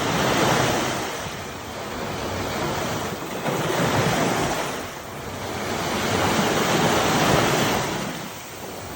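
Ocean surf: waves breaking and washing up the shore, swelling and easing three times.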